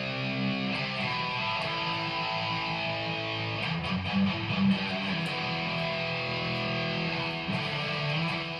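Music led by guitar, with held, changing chords.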